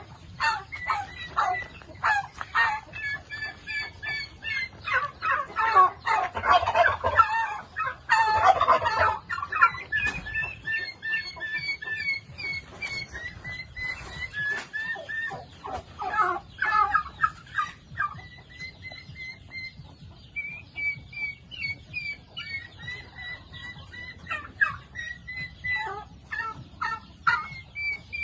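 Flock of farm poultry, turkeys among them, calling: a string of short high peeping calls throughout, with a denser, louder stretch of calls about five to nine seconds in.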